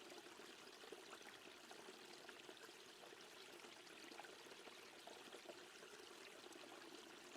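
Very faint, steady flowing-water ambience, close to silence.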